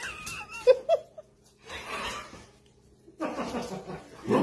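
A person laughing in breathy bursts, with a brief high wavering squeal at the start.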